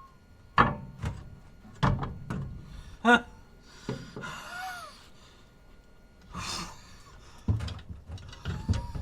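Heavy metal clunks and knocks as the Toyota 80 Series LandCruiser's differential centre is handled and shifted into the front axle housing, with scraping in between and a short ringing note about three seconds in.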